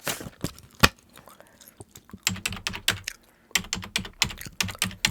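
Close-miked typing on a computer keyboard. A few scattered keystrokes come first, then fast runs of clicks from about two seconds in, with a brief pause in the middle.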